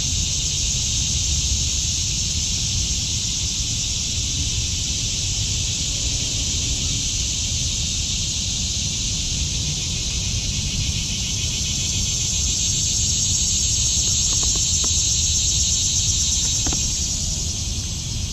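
Steady high buzzing chorus of insects, swelling louder for a few seconds past the middle, over a low wind rumble on the microphone; a couple of faint clicks near the end.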